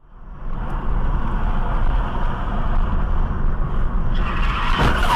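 Car driving, with steady engine and road noise heard from inside the cabin through a dashcam microphone. The noise grows harsher and louder in the last second.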